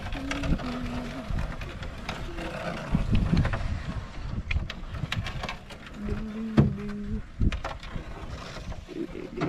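An aluminium canoe being paddled: scattered knocks and clicks of the paddle against the hull and water, over a low rumble. Twice there are brief low held tones, about a second each.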